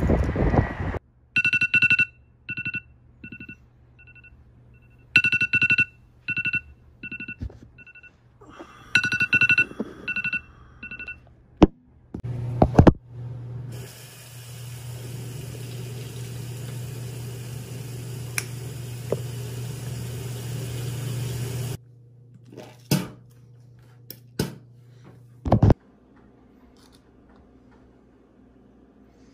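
Runs of short electronic beeps, like a phone alarm or ringtone, for the first ten seconds or so. Then a shower running for about eight seconds with a low hum, followed by a few clicks and knocks.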